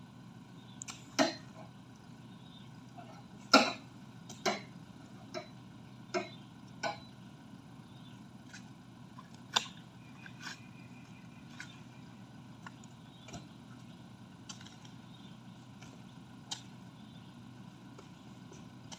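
Oil palm fruit bunches being speared with a spiked pole and thrown onto a pickup truck's load of bunches: a string of sharp, separate knocks and thuds, the loudest a little over three seconds in. The knocks come more faintly and sparsely in the second half.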